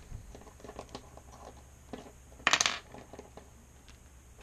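Small metallic clicks from a brass Schlage Primus mortise cylinder being handled as its cap comes off. About two and a half seconds in, a brief, sharp metallic clatter with a short ring as metal lock parts land on a ceramic tile surface.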